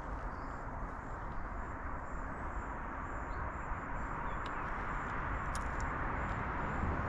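Steady outdoor background noise with a low rumble throughout, and a few faint clicks in the second half.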